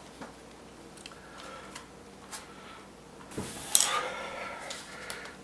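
Light clicks and taps of small plastic parts and wires being handled inside a DJI Phantom 2 drone body, with a louder clatter of clicks a little under four seconds in.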